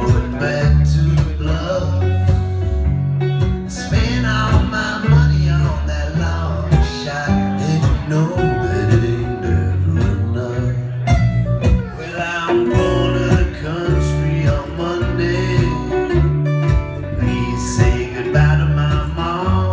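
Live acoustic band playing: several strummed acoustic guitars over a steady electric bass line, with male voices singing.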